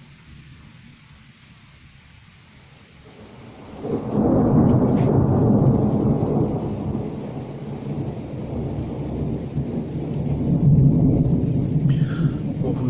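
Thunder from a storm passing close by: a faint low rumble, then about four seconds in a loud deep rumble swells up and rolls on, easing a little and building again near the end.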